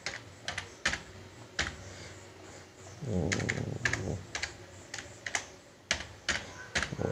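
Slow, irregular keystrokes on a computer keyboard, single sharp clicks spaced a third of a second to a second apart, as code is typed and backspaced. A brief low voice sound comes about three seconds in.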